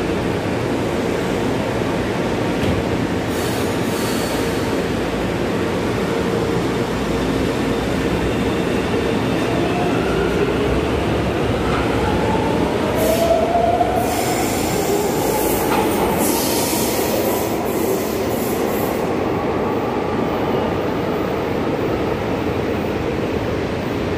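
São Paulo Metro train pulling out of the station: a steady rumble with a rising whine from the traction motors as it gathers speed, and patches of high-pitched hiss and squeal along the way.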